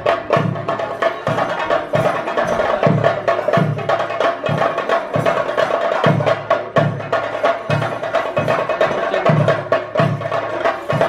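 Ritual percussion accompanying a theyyam (daiva) dance. Low drum strokes fall about every 0.7 s under a dense, rapid clatter of sharper strokes, with a steady tone held throughout.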